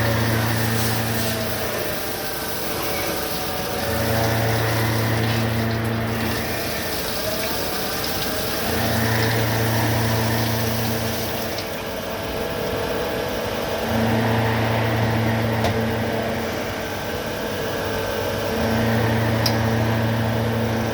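CNC automatic lathe running through repeated machining cycles, with steady coolant-like rushing and a low hum that comes on for about two seconds every four to five seconds.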